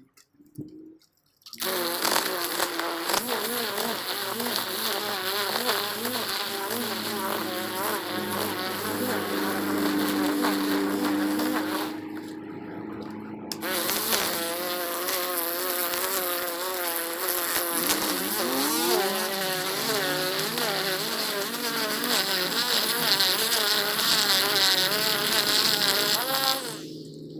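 String trimmer running hard, its buzzing pitch wavering as it cuts. It starts a moment in, eases off briefly near the middle, then runs again and stops near the end.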